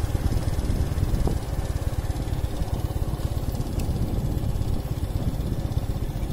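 Motorcycle engine running at riding speed, heard from on the bike: a steady, choppy low rumble.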